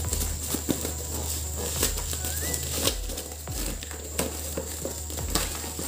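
Scissors cutting open a plastic shipping mailer: irregular snips and crinkling of the plastic wrap.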